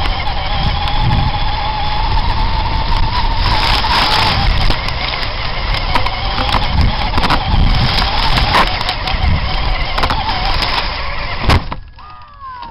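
Radio-controlled monster trucks running, a motor whining and wavering in pitch over a loud rush of noise, with scattered knocks. It stops with a sharp click near the end.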